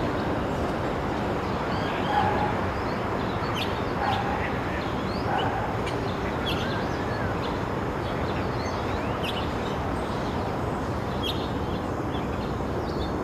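Outdoor ambience: a steady rushing noise with small birds chirping briefly many times over it.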